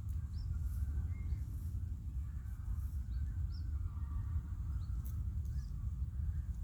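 Steady low rumble of wind buffeting the microphone, with short high chirps from small birds scattered throughout.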